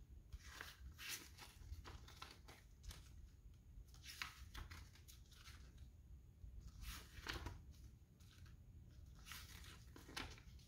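Faint rustling of paper as the pages of a CD digibook are leafed through: several brief page turns, the strongest about four and seven seconds in.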